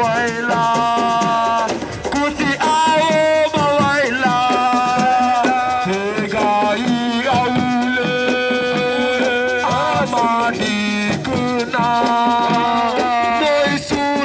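Music with held, bending melodic lines over a shaken rattle keeping a steady, busy rhythm.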